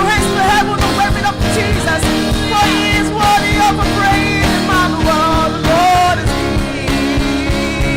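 Gospel worship song sung live by a choir with a band. A voice carries a winding melody over sustained chords and a steady drum beat.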